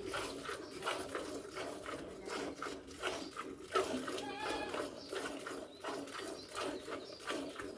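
Milk squirting from a cow's teats into a steel bucket during hand milking, a quick rhythmic hiss about three squirts a second.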